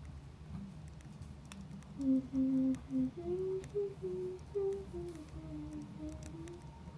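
Someone humming a short melody of about a dozen short notes, starting about two seconds in. Underneath runs a steady low crackling campfire sound with scattered faint clicks.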